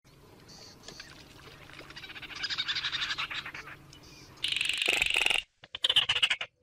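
Baillon's crake calling: a rapid, dry rattling trill of evenly spaced ticks that builds over the first few seconds and is loudest about four and a half seconds in, then breaks into short separate bursts.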